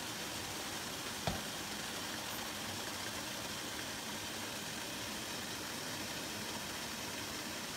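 Steady hiss of a steamer pan boiling on high on the stove, with one sharp click about a second in.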